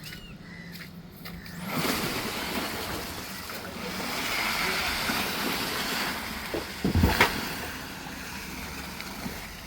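Tata Harrier EV driving through the off-road course: a rushing noise of its tyres on the terrain rises about two seconds in, with a heavy thud around seven seconds. There is no engine note, as the SUV is electric.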